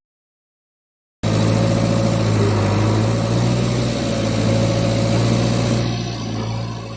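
After about a second of dead silence, an engine cuts in abruptly and runs steadily at an even, low pitch, easing off a little near the end.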